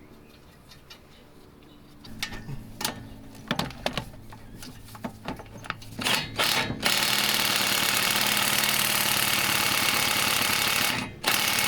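Metal tools clinking and knocking on suspension parts, then a power tool run in short bursts and held for about four seconds on a suspension nut or bolt before cutting off abruptly.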